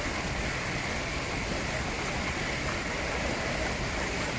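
Steady rush of a river spilling over a small rocky cascade into a pool.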